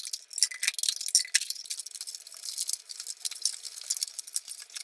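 Props for the test, plastic mineral-water bottles and a fan, being handled: a dense, irregular rattle of small clicks and crinkles.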